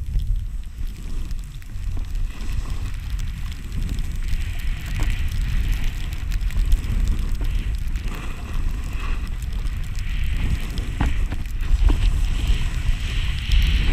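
Wind rushing over the microphone of a skier moving downhill at speed, a steady low rumble, with ski edges scraping on snow through the turns.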